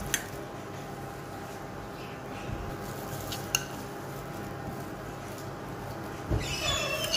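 A spoon clicking against a ceramic baking dish as a creamy filling is spooned into mushroom caps, a couple of sharp taps, then a louder scraping, squeaky stretch near the end, over a steady faint hum.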